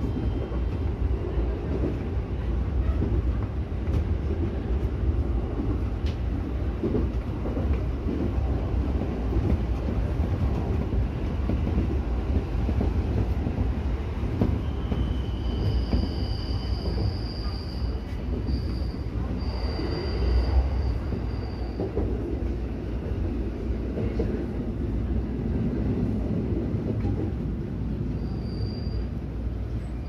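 JR E231-series electric commuter train running on track, heard from inside the front car: a steady low rumble of wheels on rail, with high-pitched wheel squeal for several seconds from about halfway through and again briefly near the end.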